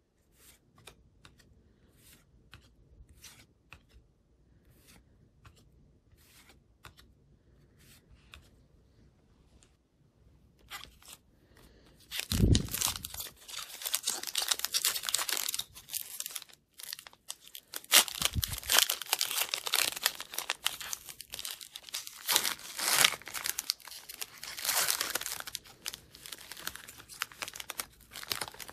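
Trading cards being flipped one by one off a stack, a soft tick with each card. About 12 seconds in, a foil-wrapped Upper Deck hockey card pack is torn open and its wrapper crinkled and peeled back, loud crackling tearing that runs on to the end.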